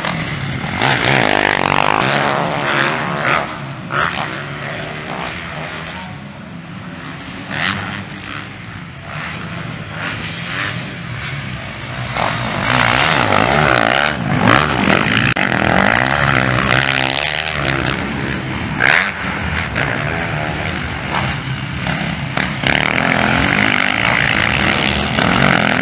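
Motocross dirt bikes racing on a dirt track: engines revving hard, the pitch rising and falling over and over as riders open and close the throttle through the corners, with several bikes heard at once.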